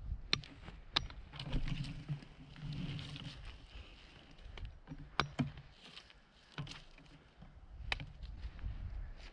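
Sticks being handled and trimmed: about five sharp wooden cracks and knocks, spread out, amid rustling and crunching of movement.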